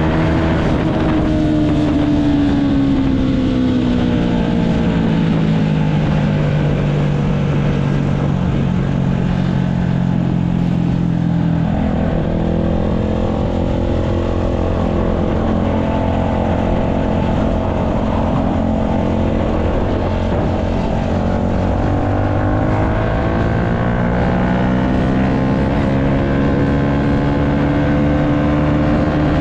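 Yamaha MT-125 motorcycle's single-cylinder four-stroke engine running under way: its note falls steadily over the first several seconds, holds, changes about twelve seconds in, then climbs again through the last third as it speeds up, over a steady rush of wind and road noise.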